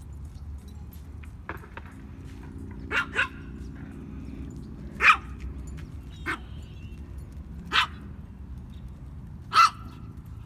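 A dog barking in short, sharp barks: a quick pair about three seconds in, then single barks every one to two seconds, the loudest about five and nine and a half seconds in, over a steady low background rumble.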